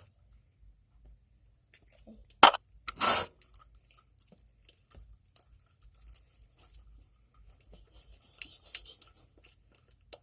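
Homemade slime being mixed and pulled after activator is added: a short sticky tearing sound about three seconds in, just after a sharp click, then faint crackling near the end.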